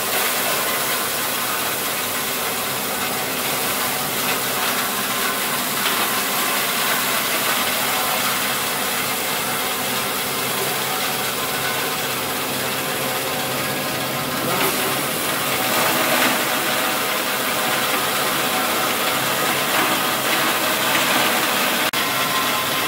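Electric belt-driven chili grinding machine running steadily, milling whole dried red chilies fed into its hopper into a coarse grind.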